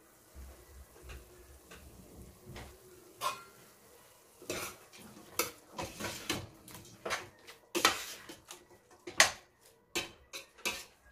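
Metal spatula scraping and knocking against the side of a stainless steel pot while stirring chicken pieces. The strokes are irregular and get louder after about four seconds.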